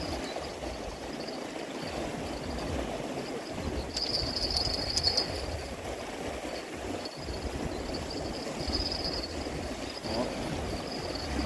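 Steady rushing outdoor noise over a low, uneven rumble, with a high, thin trill that comes and goes, loudest about four seconds in.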